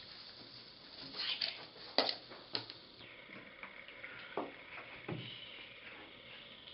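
A handful of faint, short clicks and knocks over quiet room tone.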